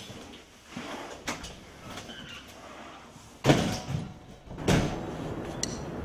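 Knocks and rattles of a camera carried on a moving bicycle, over a background of wind and road noise, with two loud thumps about three and a half seconds in and just before five seconds.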